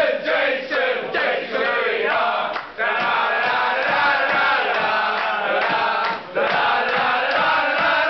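A group of football supporters, mostly men, chanting a terrace song together in unison, breaking off briefly twice between lines.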